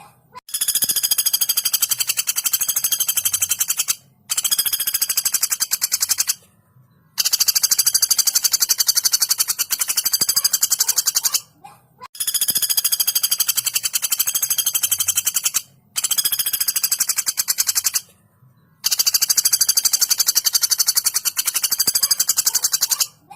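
A female pelatuk bawang woodpecker calling in long, fast rattling trills of rapidly repeated high notes. There are six bouts of two to four seconds each, with short pauses between them.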